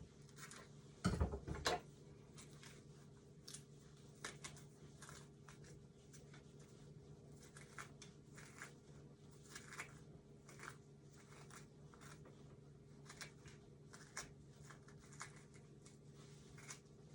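Small clicks and scrapes of a knife tip picking the seeds out of small watermelon cucumbers, with a few louder knocks about a second in. A steady low hum runs underneath.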